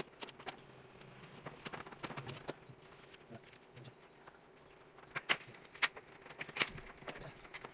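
Plastic clicks and taps from the front cover and casing of a split air conditioner's indoor unit being handled and unfastened, with a few louder clicks in the second half, over a faint steady high-pitched whine.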